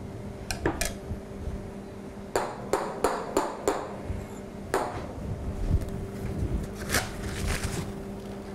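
Clinks and knocks of a metal ladle against a steel saucepan and glass dessert cups while custard cream is ladled out, about nine sharp taps with a quick run of five in the middle, over a steady low hum.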